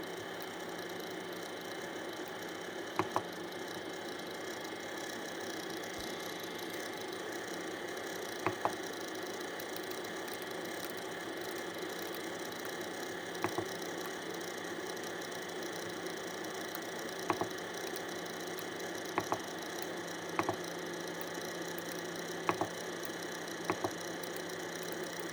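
Monoprice MP Select Mini V2 3D printer running its fans with a steady hum, with a short sharp double click every few seconds, after a print has been started and while the printer does not seem to move.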